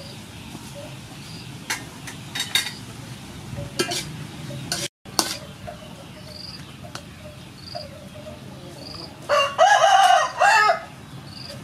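A metal spatula clinks and scrapes a few times against a steel wok as food is stirred. Near the end a rooster crows loudly, a two-part call that is the loudest sound here.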